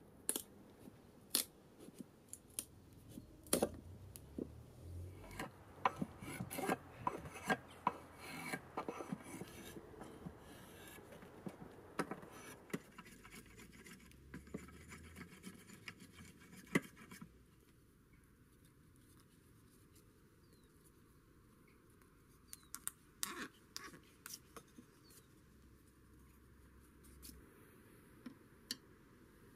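Hand edge tools cutting wood: a chisel paring, and a small blade shaving a thin spindle, heard as a run of scraping strokes and sharp clicks. The strokes thin out about halfway through, with a short burst of clicks later on and a few near the end.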